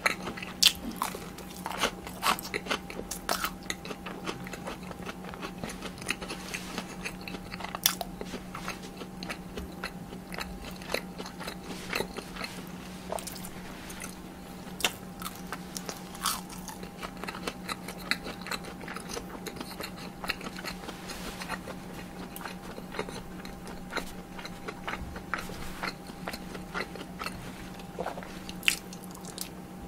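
Close-miked eating of tteokbokki and fried cheese sticks: biting and chewing, with frequent crisp crunches and wet mouth clicks. A faint steady hum runs underneath.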